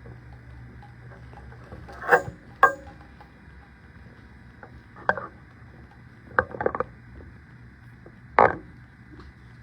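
Camera and its mount being handled and moved: scattered knocks and clicks, the loudest two close together about two seconds in, a quick cluster past the middle, and a strong knock near the end.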